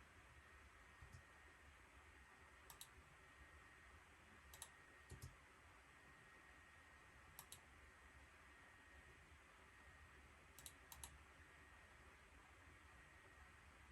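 Near silence with scattered faint clicks of buttons being pressed, about eight, some in quick pairs, over a low steady hum.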